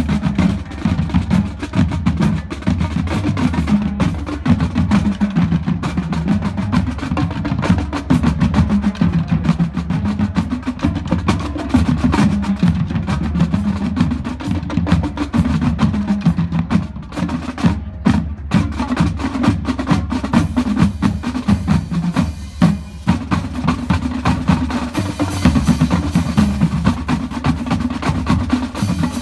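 Marching drumline of snare drums, tenor drums and bass drums playing a fast, dense cadence, with a couple of short breaks in the middle.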